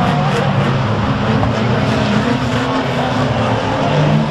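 Several banger racing cars' engines running at once, their pitch shifting up and down over a steady haze of noise.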